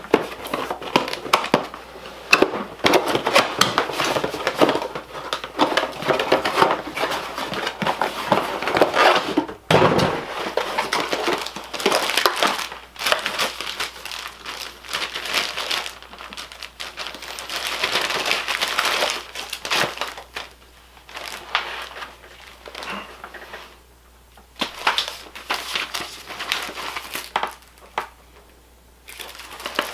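Crinkling and rustling of plastic and paper packaging being handled and torn open, dense for about the first twenty seconds, then in shorter bursts with pauses between.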